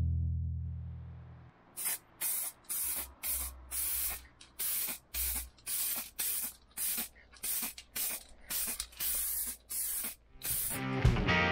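Aerosol spray can hissing in quick short bursts, about two to three a second, as paint is sprayed onto a van's wheel-arch panel.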